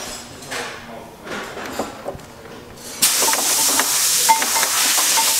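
A few faint clicks and rubbing, then a loud, steady hiss that starts suddenly about three seconds in.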